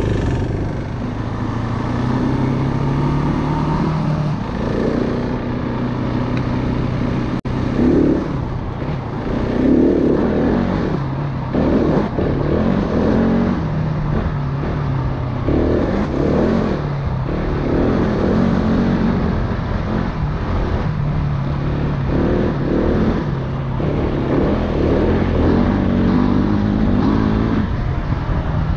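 Single-cylinder dirt bike engine being ridden under constantly changing throttle, revving up and easing off every second or two.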